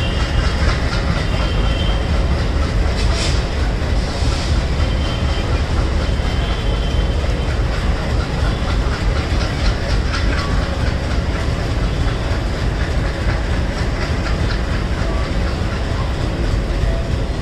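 Diesel-hauled express train running past on the track, a steady, loud rumble of wheels and coaches. A short hiss comes about three to four seconds in.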